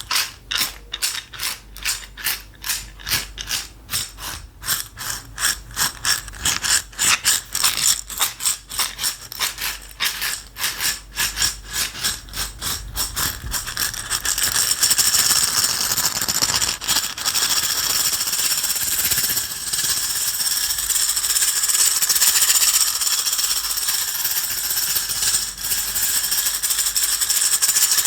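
A container of small dry pieces being shaken by hand, the contents rattling against the walls. It starts as separate shakes at about three a second, then about halfway through turns into fast continuous shaking.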